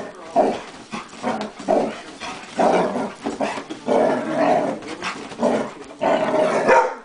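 Yellow Labrador retriever growling and barking in excited play: a run of short rough bursts, some held longer, coming every half second to a second.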